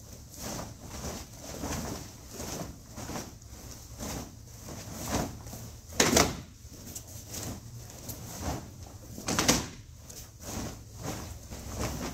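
Several taekwondo students' uniforms snapping and bare feet stepping and landing on the mat as they perform a poomsae in unison, in an irregular run of short swishes and thuds. Two sharper snaps stand out, about six seconds and about nine seconds in.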